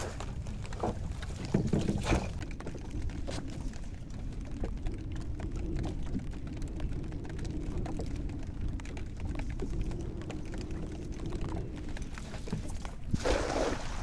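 Cast net pulled dripping from the water about two seconds in, then thrown near the end, its weighted rim hitting the water in a wide splash, the loudest sound here. Steady wind and water noise throughout.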